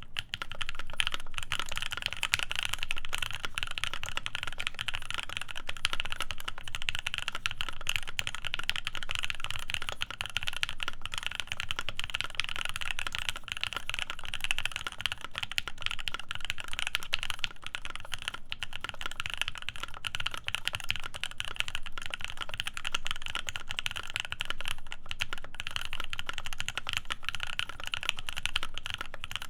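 Continuous fast typing on a CannonKeys Devastating TKL mechanical keyboard with C3 Tangerine linear switches lubed with Krytox 205g0, on an FR4 plate with PBT keycaps: a dense, unbroken stream of keystrokes.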